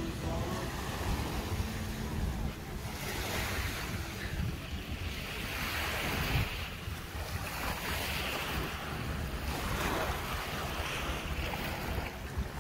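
Small waves washing onto a sandy shore, the wash swelling every few seconds, with wind buffeting the microphone as a steady low rumble.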